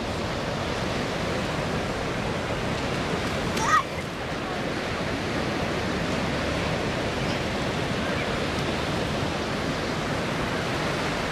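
Steady, even rushing noise of three distant MH-53E Sea Dragon helicopters flying in formation, with no distinct blade beat. A brief high chirp cuts in once, just under four seconds in.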